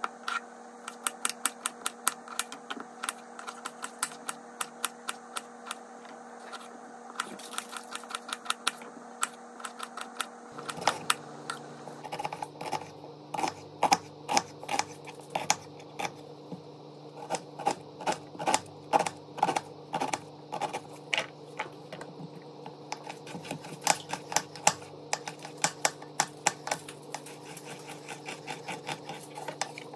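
Chef's knife chopping on a wooden cutting board, slicing tomatoes and then a red onion: a long run of sharp knocks of the blade on the board, several a second.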